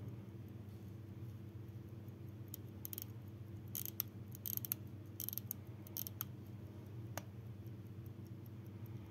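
Serkisof mechanical pocket watch being handled: a run of sharp, irregular metallic clicks from about a quarter of the way in to about three-quarters, over a steady low hum.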